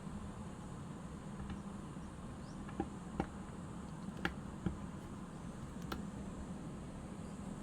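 Small clicks of a screwdriver working two tiny Phillips screws out of a vintage Super 8 camera's die-cast grip, a few sharp ones near the middle, over a steady low hum.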